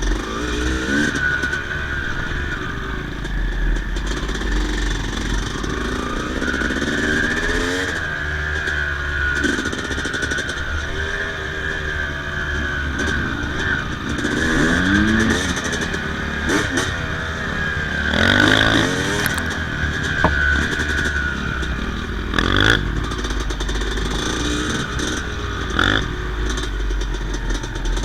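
Yamaha YZ250 single-cylinder two-stroke motocross bike running and revving, its pitch climbing and falling again several times.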